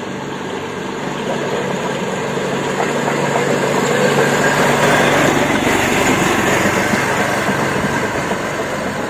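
Railway motor trolley's small engine running as the trolley rolls along the rails, growing louder as it comes close about four to five seconds in, then slowly fading as it moves away.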